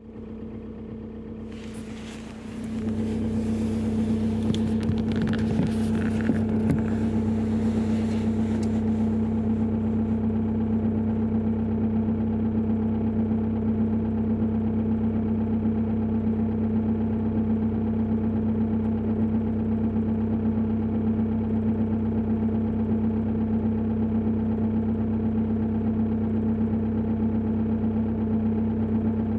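Opel Insignia 2.0 CDTI four-cylinder diesel idling steadily, the knock at idle that the owner is complaining of. It grows louder about three seconds in, and there is some rustling over the first several seconds.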